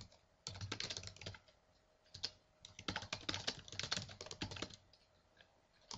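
Typing on a computer keyboard: two runs of quick key clicks with a pause of about a second between them. The typing stops about a second before the end.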